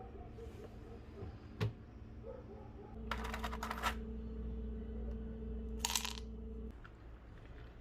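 A single sharp click, then a small electric motor runs with a steady hum for about four seconds before stopping suddenly, with a rattle of small hard objects as it starts and a brief hiss near the end.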